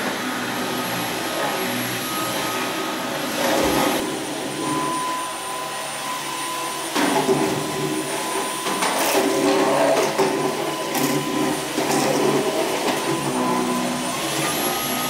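Cordless stick vacuum cleaner running continuously with a steady high motor whine over the rush of suction. It gets louder and rougher from about seven seconds in as the head is worked over the floor.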